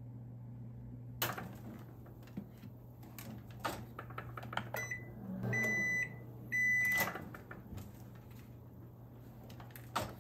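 Toshiba microwave oven being worked: clicks and taps of its door and buttons, then three beeps about halfway through, a short one followed by two longer ones. Near the end the door latch clicks as the door is pulled open.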